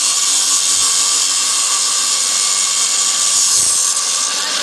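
Electric angle grinder with a cut-off disc running steadily while it cuts into a flat steel bar: a loud, high-pitched, even grinding whine.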